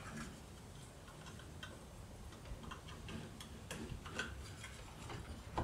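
Faint, irregular light clicks and taps of small parts being handled, a few a second at most, with no steady rhythm.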